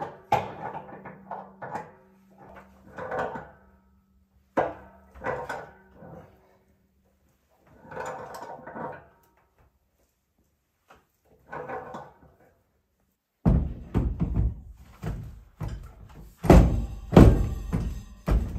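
Background music with pauses for the first dozen seconds. Then, from about thirteen seconds in, a run of loud knocks and clunks as a stainless PEX manifold is handled and fitted into its wall brackets.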